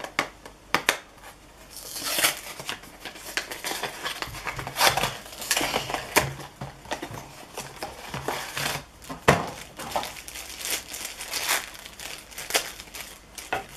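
Blind-box packaging being opened by hand: a cardboard box handled and a foil blind bag crinkling and rustling as it is unwrapped, with many sharp snaps and one louder snap about nine seconds in.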